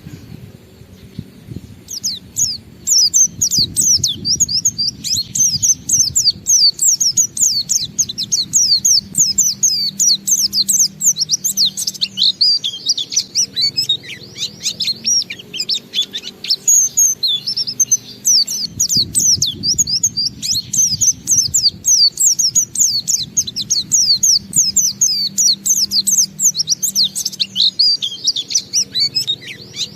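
A white-eye (pleci) singing a long, unbroken 'ngalas' song: a fast, continuous stream of high, twittering notes that starts about two seconds in and carries on without pause.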